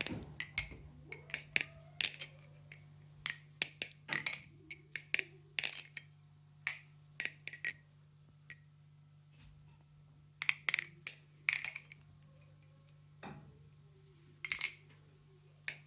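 Balisong butterfly knife being flipped: quick, irregular metallic clicks and clacks as the handles swing on their pivots and strike each other. The clicks come in flurries with a pause of about two seconds in the middle, over a faint low steady hum.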